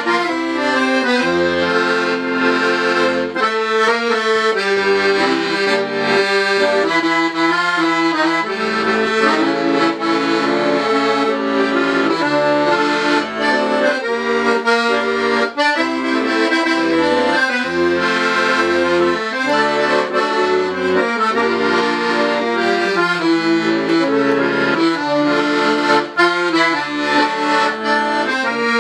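Weltmeister piano accordion played solo: a melody in the right hand over a recurring bass-and-chord accompaniment from the bass buttons.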